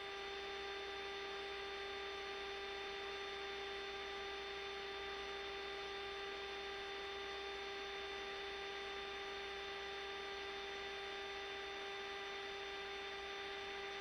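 Steady electrical hum with a hiss underneath, the constant background of a C-5 Galaxy cockpit voice recording.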